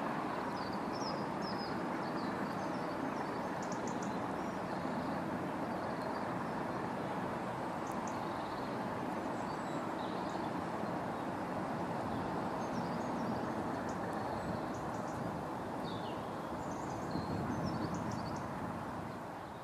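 Steady rumble of a freight train of box wagons, hauled by a pair of Class 20 diesels, as it recedes, with birds chirping over it throughout. The sound fades out near the end.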